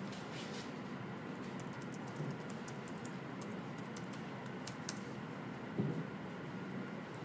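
Scattered light clicks and rustles of Bible pages being turned as people look up a verse, over a steady room hum, with one soft bump about six seconds in.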